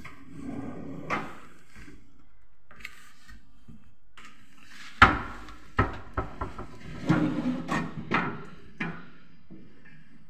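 Kitchen cabinet corner pull-out unit with metal wire baskets being pulled out and handled: a sharp knock about five seconds in, then a run of clacks and rattles from the baskets and runners.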